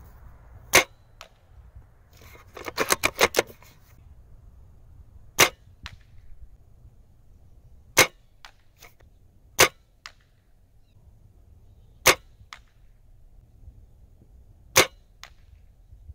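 M40A3 airsoft bolt-action sniper rifle firing .43 g BBs at a target: six sharp snaps a couple of seconds apart, most followed about half a second later by a fainter tick. A quick run of clicks comes about three seconds in.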